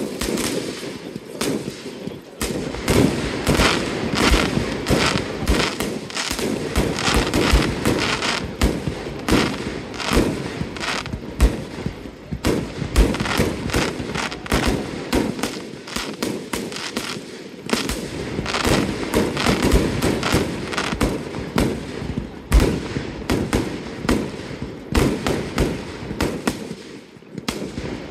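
Fireworks display: a continuous barrage of shells and comets launching and bursting, many sharp bangs a second mixed with crackling. It eases briefly near the end before picking up again.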